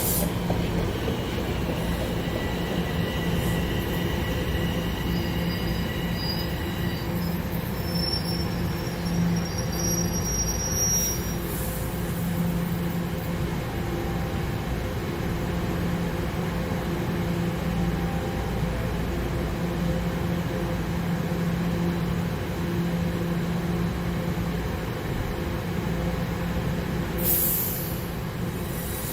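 TTC subway train running on the rails: a steady low rumble and hum, with thin high squealing tones from the wheels through the first ten seconds or so. A short hiss comes about eleven seconds in and again near the end.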